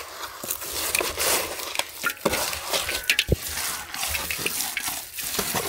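Mashed banana being mixed into wheat flour in a large aluminium vessel with a wooden spatula and hands: wet stirring and scraping, with irregular small clicks and a couple of dull thumps.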